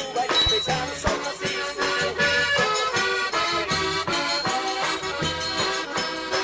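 Forró pé de serra played on the sanfona (button/piano accordion), its chords and melody running over steady low drum beats and rhythmic percussion.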